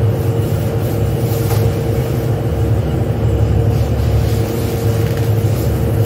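Steady factory machinery drone: a constant low rumble with a fixed hum tone running over it.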